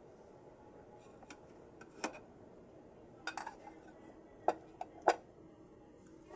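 Cutlery clinking and scraping against a plate while eating, in a handful of sharp, uneven clinks, the loudest two in the second half.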